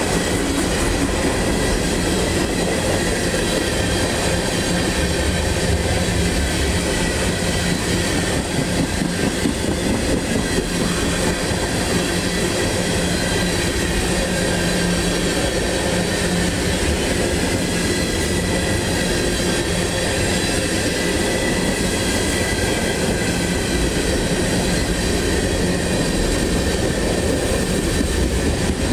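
Railroad tank cars of an ethanol freight train rolling past at steady speed: a continuous rumble of steel wheels on rail, with faint steady high tones running over it.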